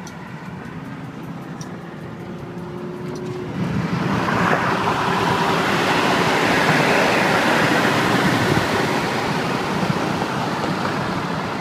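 Road and wind noise of a car driving along, with a steady hum. About three and a half seconds in it grows sharply louder as the car draws alongside a pickup truck, then eases slightly toward the end.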